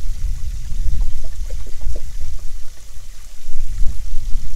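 Water lapping and gurgling against the boat's hull, over a heavy, steady low rumble.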